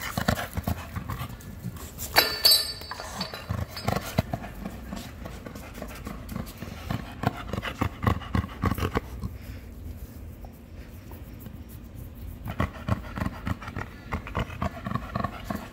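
Dog panting close by in quick, repeated breaths, with a quieter stretch about two-thirds of the way through.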